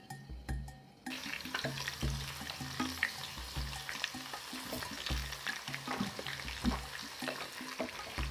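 Unripe plantain pieces deep frying in hot oil: a dense, crackling sizzle that starts suddenly about a second in, as they go into the oil. Background music with a steady low beat plays under it.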